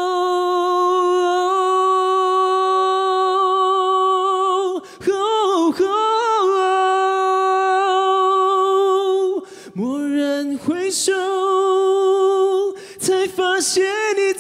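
A man singing a Mandarin ballad a cappella, holding long notes with vibrato and taking short breaks between phrases.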